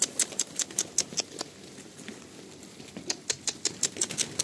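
Quick, irregular sharp light clicks or taps, several a second, in two runs: one over the first second and a half and another over the last second and a half.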